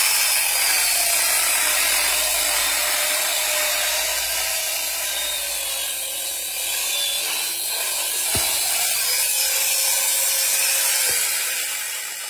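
Angle grinder converted to a chainsaw with a 12-inch bar and chain, running while it saws through a log: a loud, steady hiss of chain cutting wood over a faint motor whine that sags slightly in pitch under load.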